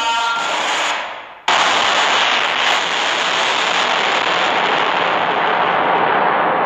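Meme sound effect: a pitched sound fading out in the first second, then a sudden burst of loud, steady noise like fireworks crackling that lasts about six seconds and cuts off abruptly.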